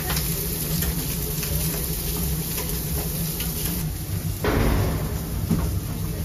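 Grill-stall kitchen sounds: a steady low hum with scattered clicks and knocks of metal utensils on the grill, and a brief, louder rush of noise about four and a half seconds in.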